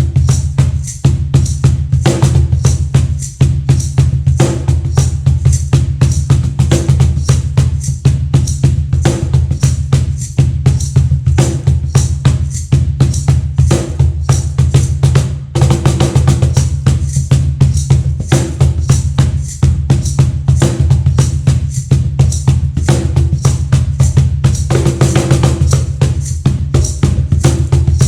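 Meinl cajon played by hand in a fast, steady groove of many strokes a second, mixing deep bass strokes with crisp, snare-like slaps.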